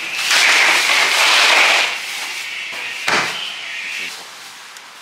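Ice tipped from a plastic bag into a plastic cooler box: a rattling rush lasting about a second and a half. About three seconds in comes a single thump as the cooler's plastic lid is shut.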